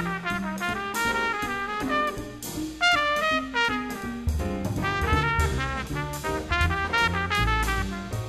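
Big band jazz: a trumpet playing a fast solo line of quick notes over bass and drums.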